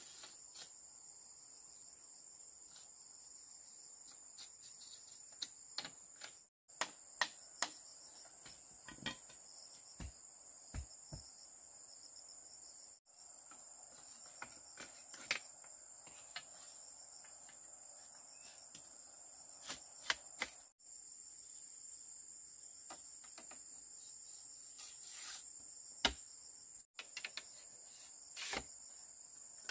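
Steady high-pitched insect chirring, like crickets, with scattered sharp clicks and knocks over it, the loudest about 26 seconds in.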